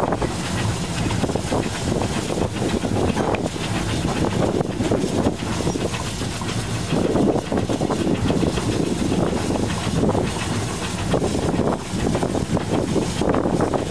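Saddle tank steam locomotive running along the line, heard from on board as a continuous, uneven rumble with wind buffeting the microphone.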